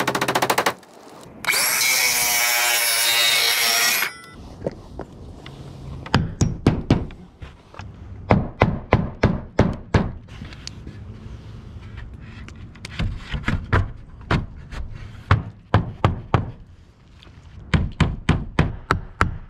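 A power saw cuts for a couple of seconds near the start. Then a hammer drives nails into new cedar siding boards, in runs of quick, sharp strikes with short pauses between them.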